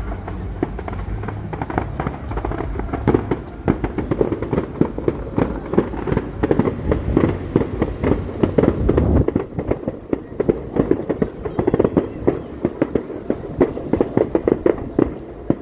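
A distant fireworks display: many shells bursting in rapid succession as a dense crackling and popping. A low rumble runs under it for the first two-thirds, then stops.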